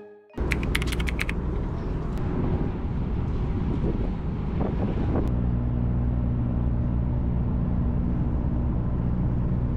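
Car ferry's engine running aboard, a steady noisy drone that settles into an even low hum from about halfway through. A quick rattle of metallic clicks comes just before the first second.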